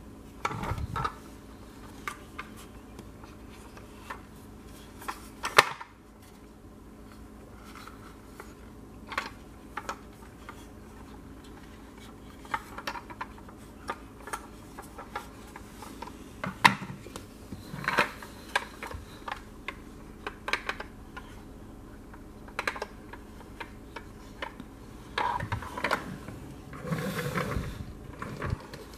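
Plastic toy vehicles being handled and set down on a wooden floor: irregular small clicks, taps and knocks of hard plastic, over a faint steady hum.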